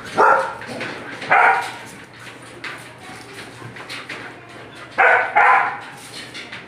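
Dog barking in short loud bursts, two near the start and two more about five seconds in, as it fends off another dog's attempt to mount it.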